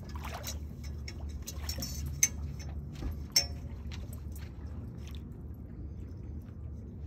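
Dog claws clicking and knocking on an aluminium boat ladder and deck as a dog climbs aboard, with two sharper knocks about two and three and a half seconds in, over a steady low rumble.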